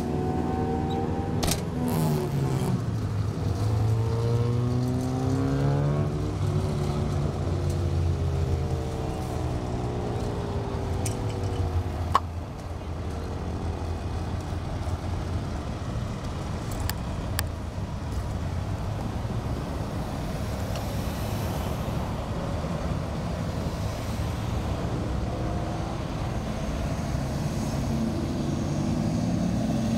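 Road traffic: car engines running as vehicles drive past, their pitch sliding up and down. After a click about twelve seconds in, a steadier engine rumble.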